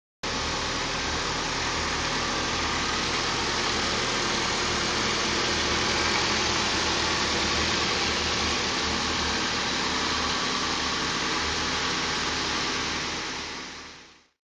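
Nissan 240SX's KA24DE 2.4-litre four-cylinder engine idling steadily. It starts abruptly and fades out near the end.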